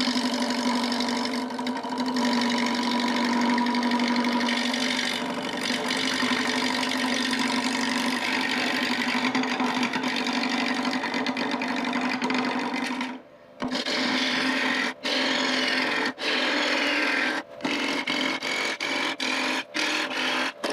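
Wood lathe running with a turning tool cutting into a spinning oak blank to round it down: a steady hum under a rough scraping cut. About two-thirds through it breaks off briefly, then goes on in short stretches with quick gaps.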